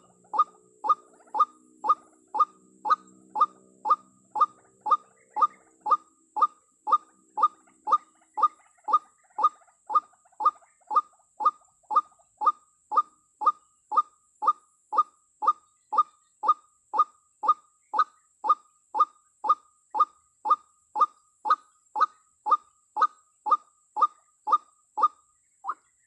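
Female white-breasted waterhen (ruak-ruak) calling, the call used to lure males to a snare. A rapid, monotonous string of short calls, about two a second, each dropping in pitch.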